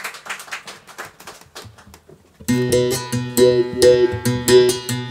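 Applause dies away, then about two and a half seconds in a seven-string acoustic guitar starts a rhythmic picked figure of repeated plucked notes.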